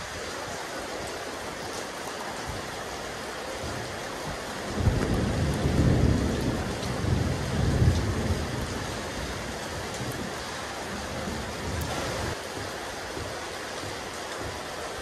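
Steady rain falling on a rooftop terrace, an even hiss, with a low rumble swelling about five seconds in and dying away some four seconds later.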